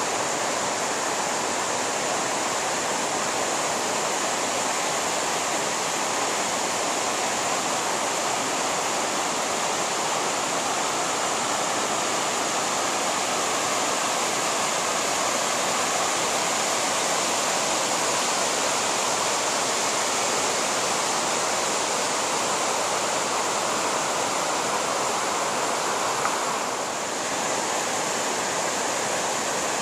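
Rocky mountain river rushing over stones: a steady, unbroken water noise that dips briefly near the end.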